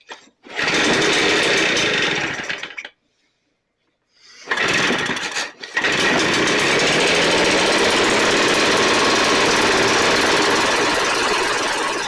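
Two-stroke engine of a STIHL BR 450 backpack blower, run with the choke on: it runs for about two seconds and stops, then starts again about four seconds in, falters once and keeps running steadily.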